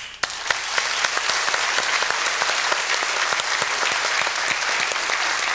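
Audience applauding: dense, steady clapping that tapers off near the end.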